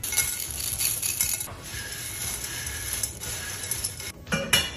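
Candy-coated chocolate pieces poured into a bowl of pretzel sticks and dry cereal, then the dry snack mix tossed by hand: a dense patter of small clicks and rustling, with a louder clatter near the end.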